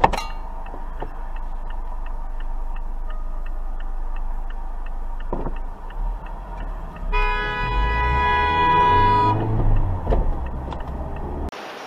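A car's indicator ticking steadily inside the cabin, about two and a half ticks a second. About seven seconds in, a car horn sounds one long blast of a little over two seconds over a low engine rumble.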